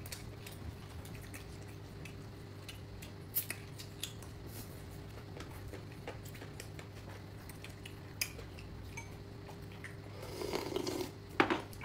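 Light, scattered clicks and taps of chopsticks and tableware during a meal, over a steady low hum. A short muffled sound comes near the end.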